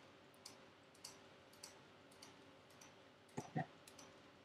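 Faint, regular ticking, a little under twice a second, over quiet room tone, with two soft knocks close together about three and a half seconds in.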